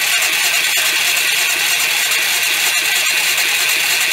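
A small single-cylinder four-stroke motorcycle engine cranking steadily on its electric starter without firing, turned over at a couple of hundred rpm to pump oil up to the cylinder head after a rebuild. The cranking is loud and even, with a faint regular ticking through it.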